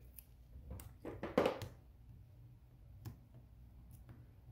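Double-sided tear-and-tape adhesive and paper being handled by hand: a short rasp of tape pulled from its roll about a second in, then a couple of light taps as the paper is pressed down.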